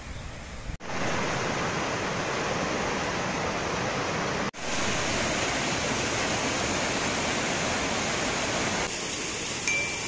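Steady rushing of a fast mountain river pouring over small cascades. It cuts off abruptly for an instant about a second in and again about halfway, then goes on. Near the end a short, clear chime sounds once.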